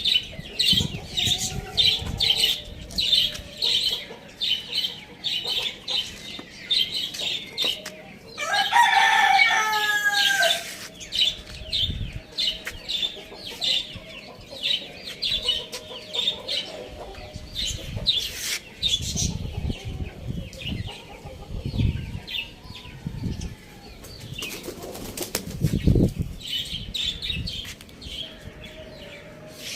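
A rooster crows once about nine seconds in, a loud call of about two seconds that falls in pitch at its end. Around it, small birds chirp rapidly and steadily, several short chirps a second.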